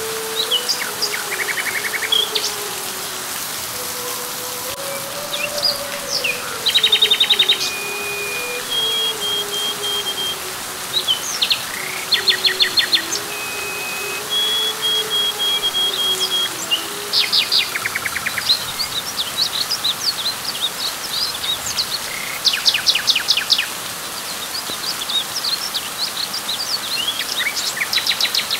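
Steady rain falling on leaves, with birds calling over it: repeated rapid trills and short held whistled notes every few seconds, busier in the second half. A lower wavering tone drifts through the first part and fades out a little past halfway.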